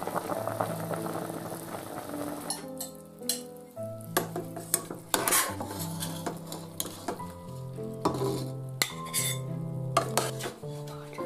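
Metal ladle clinking and scraping against a stainless steel stockpot as stewed meat and carrots are scooped out, a series of sharp clinks from about two and a half seconds in. A simmering hiss is heard before the clinks start, and background music with a bass line plays throughout.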